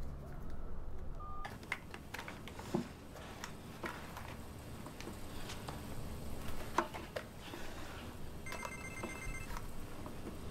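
Mobile phone ringing: a rapidly pulsing electronic ringtone starts about eight and a half seconds in and lasts about a second, after scattered sharp clicks and knocks.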